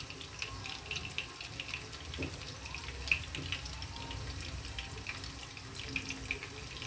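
Chopped onion sizzling in hot oil in a frying pan: a steady hiss with many small crackles as the pieces go in.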